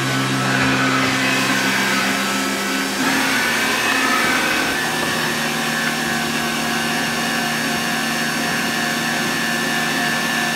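Mori Seiki MV35 vertical machining center running: a steady machine hum and whine made of several steady tones. About three seconds in, the tones shift to a new set.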